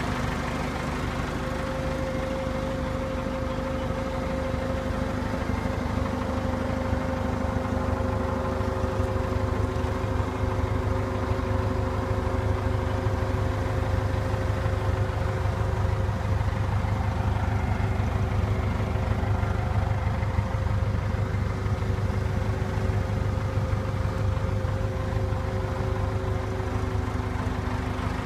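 Case W14H wheel loader's A336BD diesel engine idling steadily: an even low hum with a few constant tones above it.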